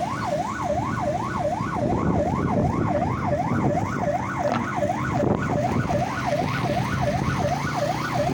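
Vehicle siren on a fast yelp, its pitch sweeping up and down about three times a second without a break, over the rumble of engines and road noise.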